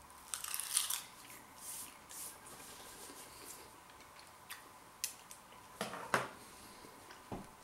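An Itsu crispy seaweed thin bitten and chewed: a burst of dry, light crackling in the first second, then a few fainter crunches. Several short clicks and knocks follow about four to six seconds in.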